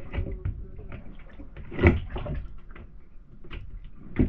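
Water sloshing and splashing from kayak paddling. There are two sharp knocks, one about two seconds in and one near the end.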